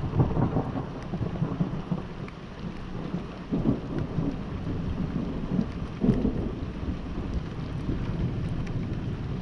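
Rolling thunder rumbling over steady rain, with three louder swells: near the start, about three and a half seconds in, and about six seconds in.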